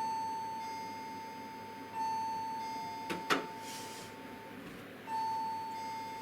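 A steady electronic tone held on one pitch, swelling louder again every two to three seconds, with two sharp clicks a little after three seconds in.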